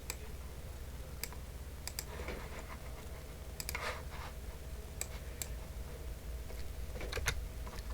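Scattered taps and clicks on a computer keyboard, single or in quick clusters every second or so, over a low steady hum.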